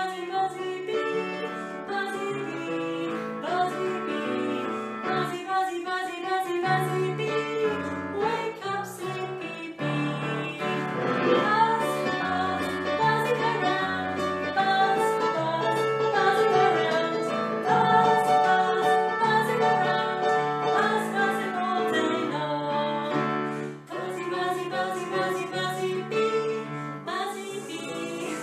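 A woman singing a children's song, accompanied by chords and a bass line on an electronic keyboard.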